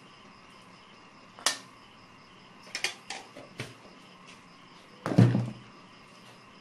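Metal spoon and spatula knocking against a metal wok: a few sharp clinks, then a heavier knock about five seconds in.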